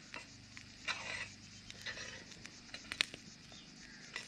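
Metal tongs scraping and clicking against a metal griddle plate over a wood fire: a short scrape about a second in, then a few sharp clicks.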